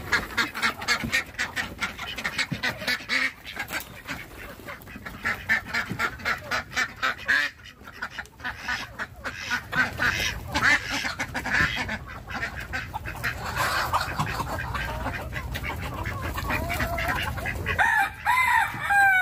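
A backyard poultry flock just let out of its coop, calling and clucking busily, with a longer call that rises and falls near the end.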